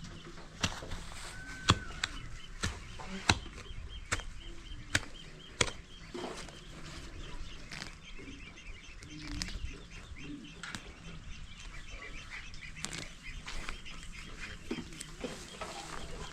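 A run of sharp clicks or snaps, about one a second for the first six seconds, over outdoor garden ambience with birds chirping: a short whistled call near the start, then steady high twittering.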